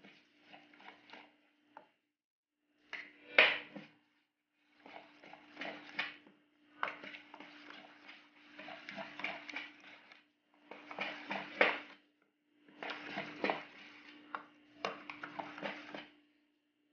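A steel spoon stirring thin rava (semolina) dosa batter in a stainless steel bowl, scraping and clinking against the sides in several spells of a second or two with short pauses between. A faint steady hum runs underneath.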